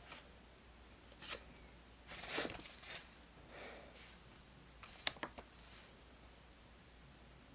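Paper and stationery handled at a desk: a short scratchy rustle and a few light clicks and taps.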